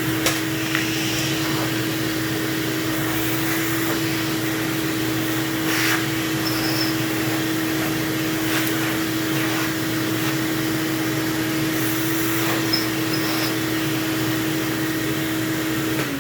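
Electric vacuum cleaner motor running at a steady speed, then switched off near the end and winding down with a falling pitch.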